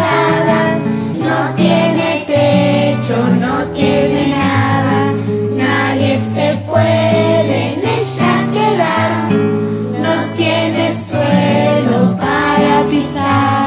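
Background music: a children's song with singing over instruments.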